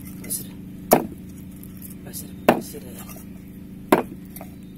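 Heavy knife chopping a beef leg on a wooden chopping board: three hard strikes about a second and a half apart, the blade going through meat and bone into the wood, with a lighter tap near the end.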